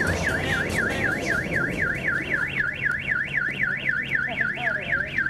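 Car alarm going off: a wailing tone that sweeps up and down about four to five times a second without a break.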